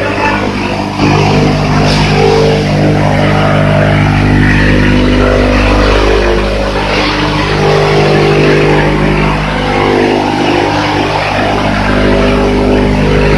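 Corn and grass chopper machine running steadily, a continuous motor hum with a dense mechanical noise over it.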